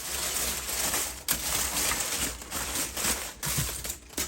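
Aluminium foil crinkling and crackling as it is handled, with a few sharper crackles.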